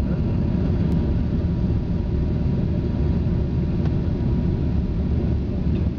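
Steady cabin roar inside a Bombardier CRJ-200 regional jet, heard from a forward window seat during a low-altitude approach: the two rear-mounted GE CF34 turbofans and the airflow over the fuselage, with a faint steady tone on top.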